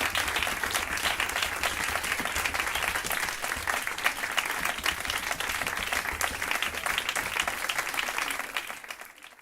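Audience applauding steadily with many overlapping claps, fading out near the end.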